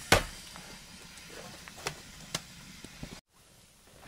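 A hatchet chopping firewood on a wooden block: a loud sharp knock right at the start, then a few lighter knocks about two seconds in.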